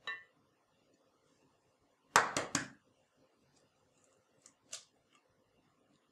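An egg is knocked against the rim of a glass mixing bowl to crack it: three quick, sharp knocks about two seconds in, then a couple of fainter clicks.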